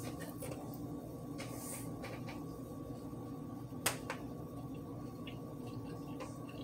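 A person chewing food with the mouth closed, making soft wet mouth clicks over a steady room hum, with one sharper click about four seconds in.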